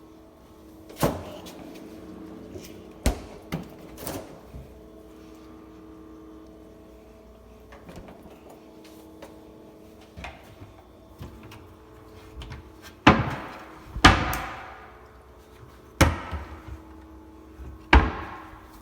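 A series of about eight knocks and bangs of doors or cupboard doors being opened and shut, the loudest ones in the second half ringing on briefly. A steady hum runs under the first part.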